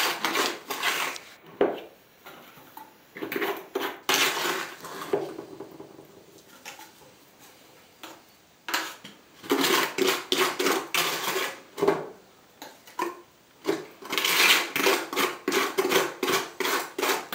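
Irregular clinking and scraping of a spoon against the plastic tube of a grout gun and a plastic bucket as ready-mixed grout is scooped into the gun. The strikes come in uneven clusters, with a quieter stretch in the middle.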